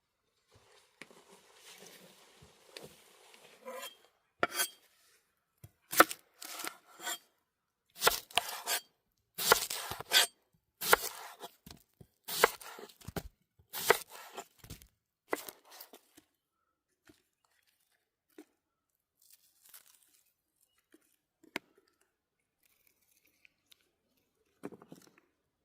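A run of irregular rasping, tearing noises, about a dozen loud strokes close together, typical of food or wrapping being torn and handled during cooking preparation. After them come mostly quiet seconds with a few faint clicks.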